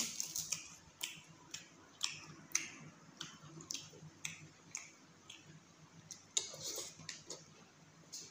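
Close-up eating sounds of chicken curry and rice eaten by hand: wet, irregular smacking clicks from chewing, about two a second, with a denser run about six seconds in.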